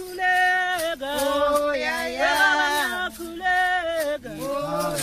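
Voices singing, holding long notes that slide from one pitch to the next.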